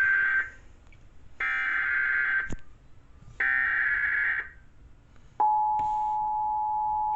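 Emergency Alert System SAME header: short bursts of warbling digital data tones, each about a second long with about a second between, encoding the coastal flood warning for receivers. About five seconds in the bursts give way to the steady two-tone EAS attention signal.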